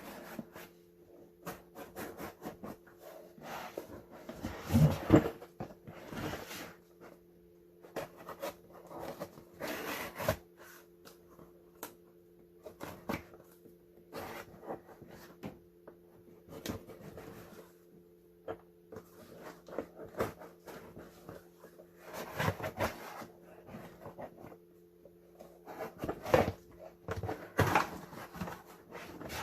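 Shipping packages being opened and their contents handled: irregular rustling, scraping and knocks, the loudest about five seconds in and again near the end, over a steady low hum.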